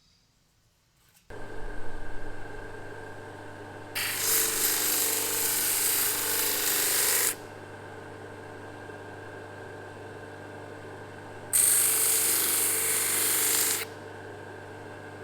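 An electric power tool's motor switches on about a second in and runs with a steady hum. Twice, first for about three seconds and then for about two, a chisel is held against it, giving a loud, harsh grinding hiss over the motor.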